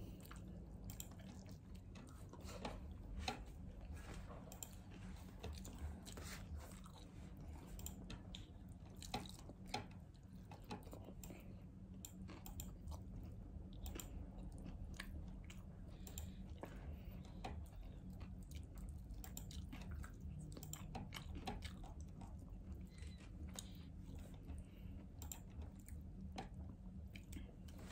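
A person chewing while eating meat off the bone and rice by hand, with many small scattered clicks and taps, over a steady low hum.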